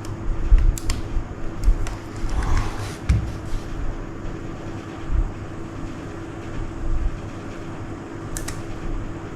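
A few scattered key presses on a Keychron K3 low-profile mechanical keyboard, short sharp clicks about one, two, three and eight and a half seconds in, over a steady background hum.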